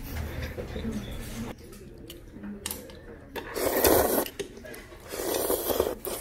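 A person slurping seafood kalguksu noodles from a bowl: two long, loud slurps, the first starting about halfway through and the second near the end.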